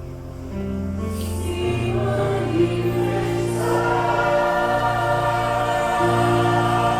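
Music with choir-like singing: several voices holding long, sustained notes that move to new chords a couple of times.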